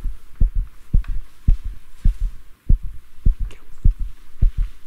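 Heartbeat: low double thumps, lub-dub, repeating steadily at just under two beats a second.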